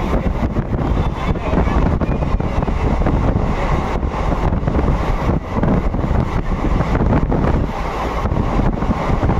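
Black Diamond Express passenger train running at speed: a steady, loud rumble with wind buffeting the microphone.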